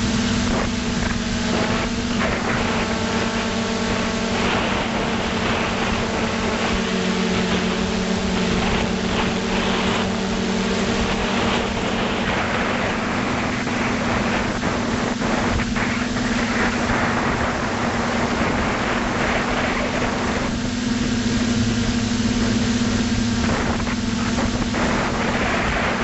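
Drone's electric motors and propellers buzzing steadily in flight, heard from the camera on board, over a hiss of rushing air. The pitch dips and rises a little now and then.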